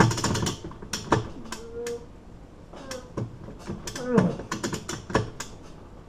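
Hand-cranked winch ratcheting in single sharp clicks about a second apart as it draws bolt cutter handles together under heavy load. The cutter jaws are not biting through the padlock's hardened steel shackle.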